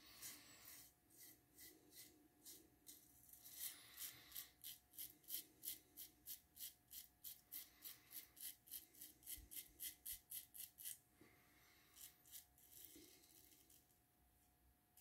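Double-edge safety razor scraping stubble through lather on the neck in faint, short strokes. The strokes come scattered at first, then in a quick run of about three a second through the middle, then thin out again.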